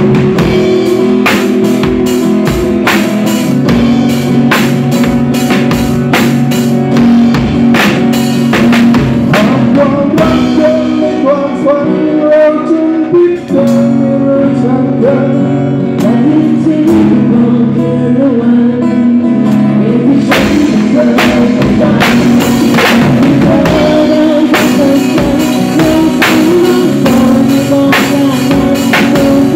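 Live band playing with a singer, the drum kit close and loud. The drums and cymbals thin out to a lighter section from about ten seconds in, then come back in full about twenty seconds in.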